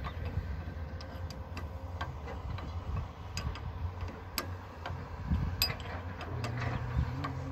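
Irregular sharp metallic clicks and ticks of pliers and hand tools working a small metal part, over a steady low rumble.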